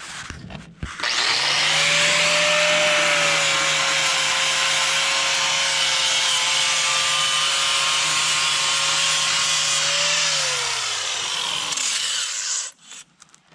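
Angle grinder starts about a second in and runs steadily, grinding concrete and mortar with a dense rasp over its motor whine, then is switched off and winds down near the end.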